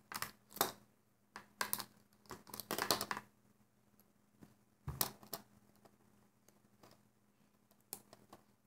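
Plastic Alpha Loom pieces and rubber bands being handled: light clicks and taps, thick for the first three seconds, a dull knock about five seconds in, then a few more clicks near the end.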